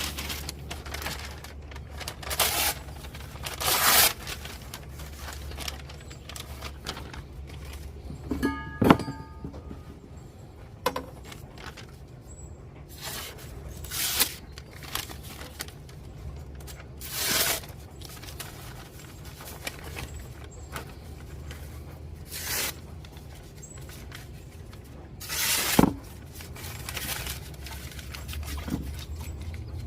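Small hand-held sandstone sharpening stone scraping along a machete's steel edge in short, separate strokes every couple of seconds, over a steady low hum; one stroke about nine seconds in briefly rings.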